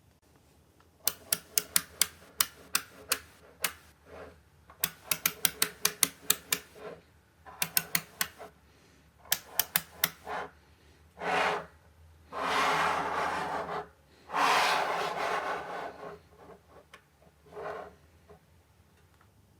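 Small neodymium magnetic balls snapping onto each other in quick runs of sharp clicks, several a second, then a few longer rattling, rustling passages of balls moving against each other.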